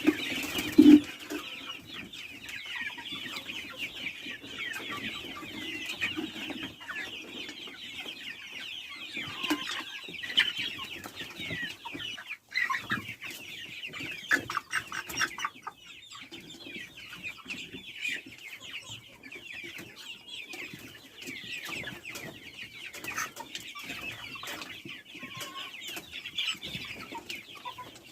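A flock of chickens clucking and calling all at once, a dense, continuous chatter of many birds, with a sharp knock about a second in.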